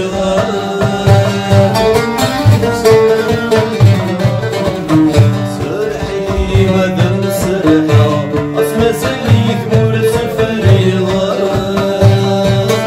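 Oud plucked with a plectrum, playing a quick melody over held low notes, with a man singing along.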